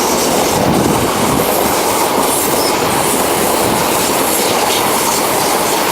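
Greater Anglia train of Mark 3 coaches hauled by a Class 90 locomotive, rolling past along the platform: a steady, loud rolling noise with the wheels clattering over rail joints.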